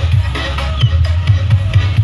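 Loud electronic dance music with a heavy, fast bass beat, played through a parade's large mobile sound system ("sound horeg").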